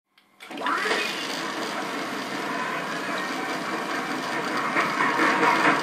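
Steam locomotive running a train into a station, a steady rumble and hiss with a rhythmic chuffing beat setting in near the end, heard on an early sound-film soundtrack.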